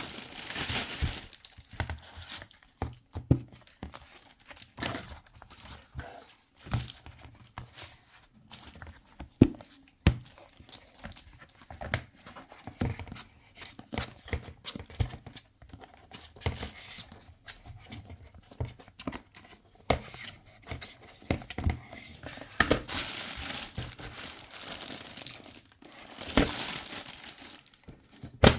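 Plastic packaging crinkling and tearing while being handled, with irregular light clicks and knocks of hard items being moved about; the crinkling is loudest at the start and again near the end.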